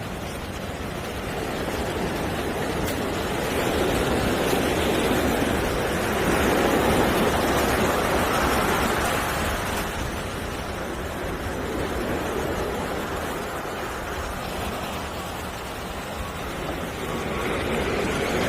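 Ocean surf: a steady rushing wash that swells for a few seconds, eases off, and builds again near the end.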